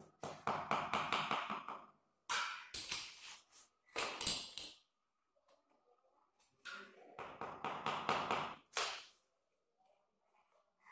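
Wooden hammer handle tapping a marble tile down into wet mortar in quick runs of light taps, four spells with short pauses between them.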